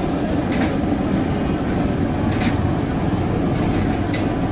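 Steady low rumble at a street dosa stall, with a few short scrapes of a metal spatula on an iron dosa griddle as a dosa is lifted off.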